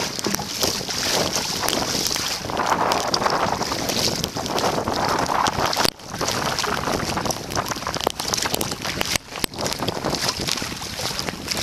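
Blizzard wind gusting hard over the microphone, a dense surging rush with crackles, cutting out sharply for a moment about halfway through and again a few seconds later.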